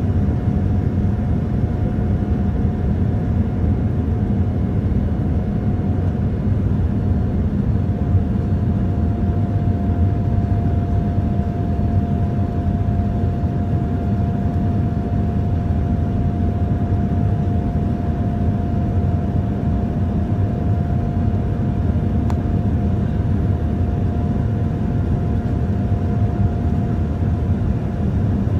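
Cabin noise of a Boeing 787-9 climbing after takeoff: a steady jet-engine and airflow roar, mostly low, with a steady whine running through it that shifts slightly in pitch about seven seconds in.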